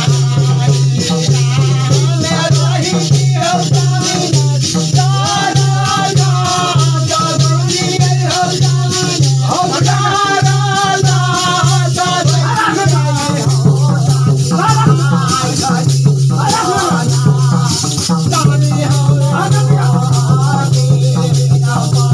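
Devotional music: a voice singing over a steady rattling shaker beat and a pulsing low beat.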